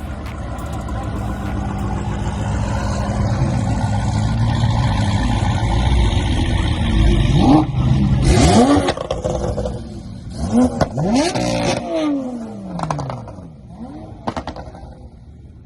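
A car engine with a loud exhaust, its rumble building, then revved hard several times in the middle with sharp rises in pitch. The engine note falls away and fades near the end.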